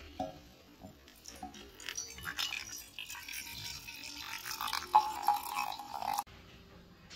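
Coffee pouring from a glass carafe into an empty metal enamel mug: a splashing stream that grows fuller and louder as the mug fills, then cuts off suddenly about six seconds in.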